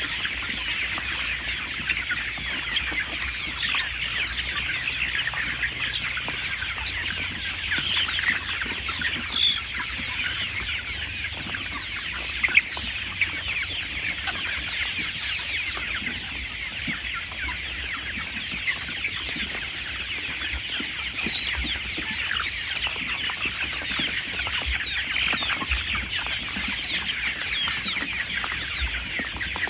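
A flock of 37-day-old chickens peeping and clucking all together, a dense, unbroken chorus of high chirps.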